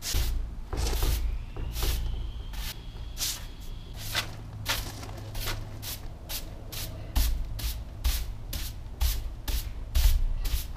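Plywood panel being hand-sanded with a sanding block, scraped in short strokes about twice a second, over a steady low rumble.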